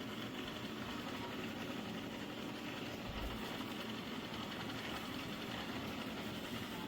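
Shark PowerDetect robot vacuum running with a steady, even motor and brush noise.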